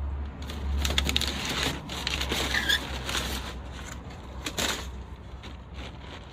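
Packaging being handled and crinkled while a train horn kit is unpacked: irregular crackling and rustling with scattered clicks, busiest about a second in and again near the end, over a steady low hum.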